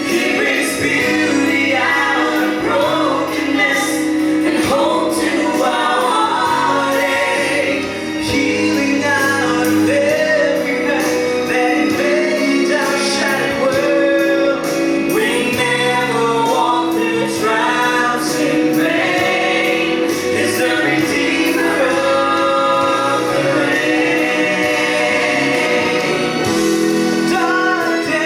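A vocal group singing a gospel song in harmony, male and female voices with instrumental backing.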